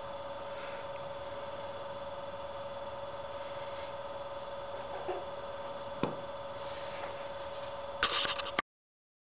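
Steady background hum with two faint clicks, then a brief clatter near the end as a pen is laid down on a workbench top. The sound then cuts off abruptly.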